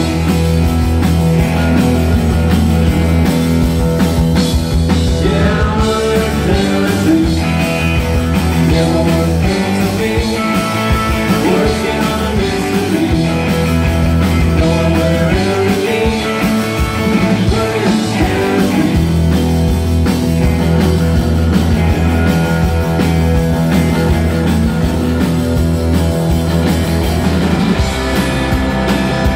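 Live rock band playing steadily and loudly, with electric guitars, bass guitar and drum kit.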